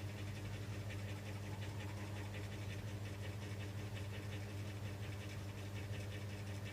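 Rapid, continuous scratching, typical of a tool scraping at the phone's screen during glass replacement, over a steady low electrical hum.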